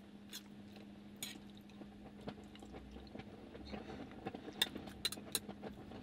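A fork clinking and scraping on a plate during eating, with small sharp clicks that come thicker about two-thirds of the way in. A faint steady hum runs underneath.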